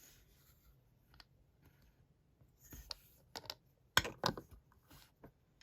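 A few light clicks and knocks of handheld sonic screwdriver replicas being handled and set down on a surface, irregular, with the loudest pair of knocks about four seconds in.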